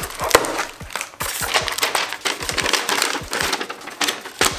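Cardboard box being opened by hand and its white packing paper crinkled and pulled out: continuous rustling and crackling with many small knocks.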